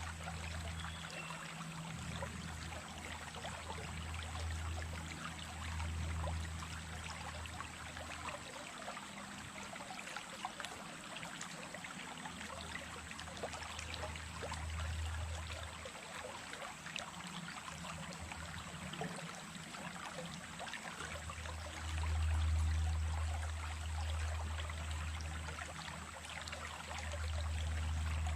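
Small stream of running water, babbling and trickling steadily with many fine splashes. A low rumble swells and fades every few seconds underneath, loudest about two-thirds of the way through and again near the end.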